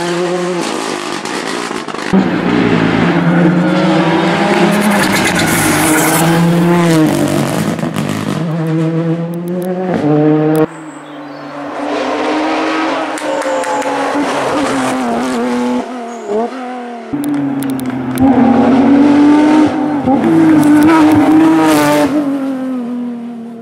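Rally car engine at full stage pace, its pitch climbing and falling as it accelerates through the gears and lifts for corners. The engine note cuts back sharply about ten and a half seconds in, dips briefly twice around sixteen seconds, then pulls hard again.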